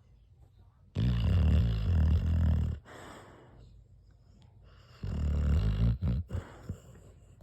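An overweight dog snoring in its sleep: two loud, rasping snores about four seconds apart, the second trailing off in a few short sputters, with quiet breathing between.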